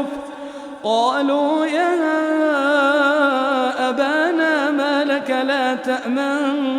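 A male Quran reciter chanting in drawn-out melodic tajweed style, holding long ornamented notes with wavering pitch. The voice dips briefly near the start, then a new phrase begins about a second in with a rising pitch.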